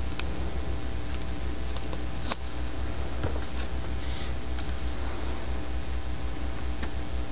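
Hands smoothing painter's tape down over tulle netting on a cutting mat: soft rustling and light ticks, with one sharp click about two seconds in, over a steady low hum.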